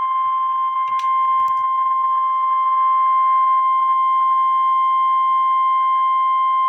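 NOAA Weather Radio 1050 Hz warning alarm tone: one loud, steady, unbroken tone that signals an emergency warning is about to be read, here a severe thunderstorm warning.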